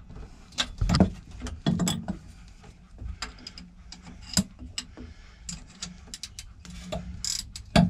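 Irregular metallic clicks and knocks of a hand wrench working a nut loose on an engine's cable fitting, with a few louder clanks.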